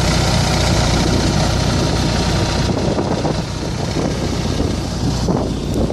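Onboard generator of a Fleetwood Coronado motorhome running steadily, a constant low hum with a hiss of noise above it.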